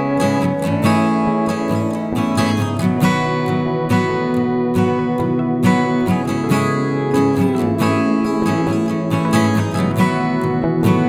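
Background music played on acoustic guitar, strummed in a steady rhythm, with a few sliding notes.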